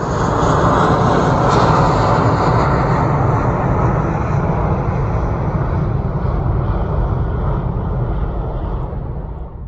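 Jet airliner engines, a loud, steady rushing roar that eases off a little near the end.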